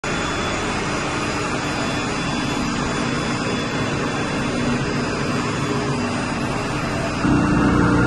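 Steady mechanical drone of a running chiller plant room, with faint steady tones in it. About seven seconds in it grows louder, with a deeper hum and a steady tone coming in.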